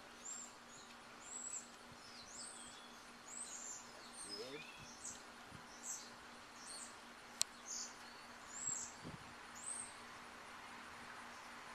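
A small bird chirping in a quick run of short, high-pitched notes, about one or two a second, that fade out near the end. A single sharp click sounds about seven and a half seconds in, over a faint steady hum.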